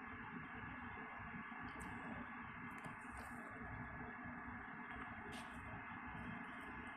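Quiet, steady room tone with a few faint clicks, about two, three and five seconds in.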